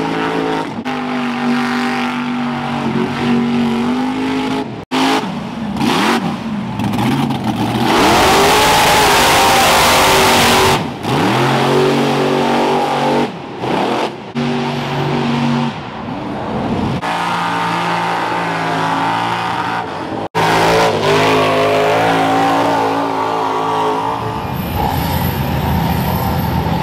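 Engines of lifted mud-bog trucks revving hard through a mud pit, their pitch repeatedly climbing and falling. About a third of the way in, a loud rushing noise swamps the engine for a few seconds, and the sound breaks off abruptly twice where the clips are joined.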